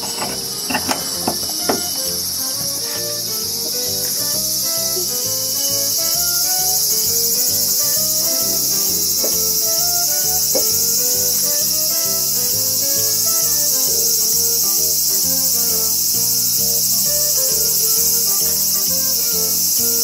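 Loud, steady insect chorus, a continuous high-pitched shrill, over soft background music of stepping notes. A few sharp clicks come about a second in.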